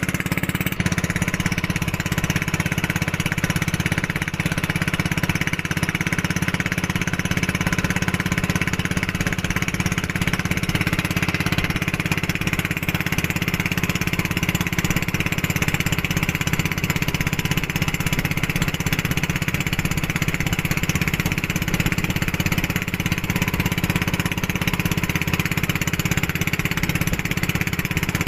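Motor of a boat towing a banana boat, running steadily at speed, with the rush of water and wind past the boat.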